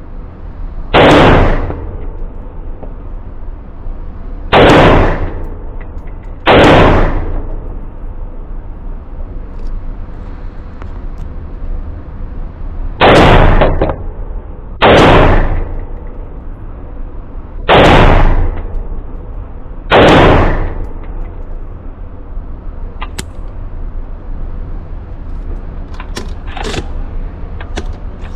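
AR pistol (Franklin Armory lower, Radical Firearms upper) firing seven shots on an indoor range, each echoing off the walls, the shots spaced irregularly and several coming in pairs about two seconds apart. A few faint clicks follow near the end.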